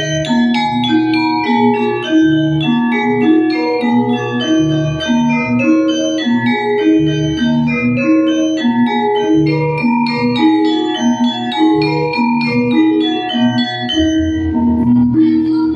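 Javanese gamelan music: the bronze kettle gongs of a bonang struck with two sticks in quick, steadily repeating note patterns, over lower struck notes, each note ringing on.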